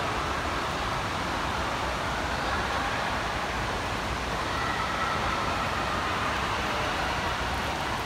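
Steady, even background noise of an indoor swimming pool hall, with no distinct events.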